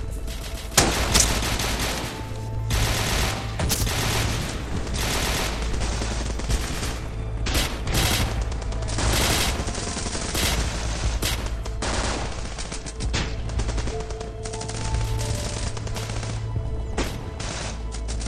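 Sustained automatic gunfire, coming in repeated volleys of rapid shots one after another.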